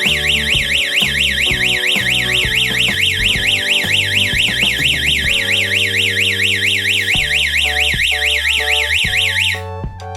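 Electronic security-alarm siren warbling rapidly up and down, about four sweeps a second, loud over background music. It cuts off suddenly near the end, the alarm shutting itself off after its ten-second sounding.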